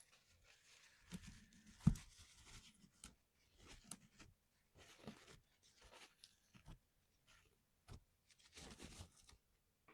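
Irregular small clicks, knocks and brief scraping rustles from hands working on a mechanical keyboard, spaced unevenly rather than in a steady typing rhythm.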